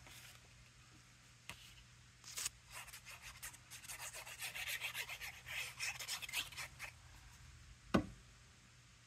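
Cardstock being rubbed and handled by hand for several seconds, a dense run of quick rubbing strokes as a paper layer is pressed down, then a single thump near the end.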